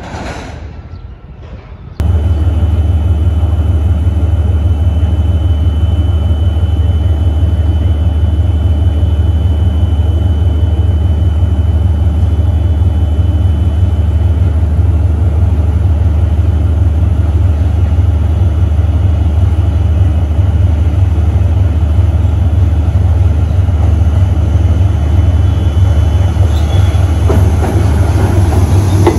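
JR Freight DF200 diesel-electric locomotive's engine running with a loud, steady, deep rumble. Over the last few seconds the rolling noise of its wheels and tank wagons on the rails builds as it draws close.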